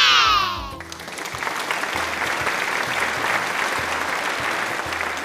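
Applause: dense, even clapping that starts about a second in and runs for about four seconds over soft background music. It follows the tail of a falling, pitched cry.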